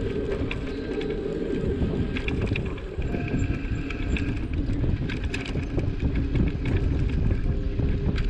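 An engine running steadily with a heavy low rumble and hum, with scattered light rattles and ticks over it.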